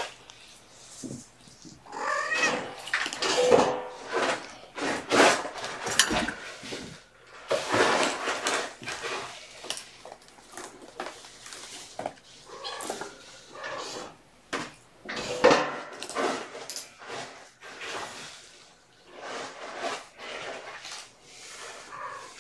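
A cat meowing several times in short, wavering calls, mixed with brief knocks and rustles.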